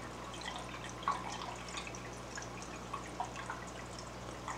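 Aquarium water dripping and trickling in small, irregular plinks, over a steady low hum.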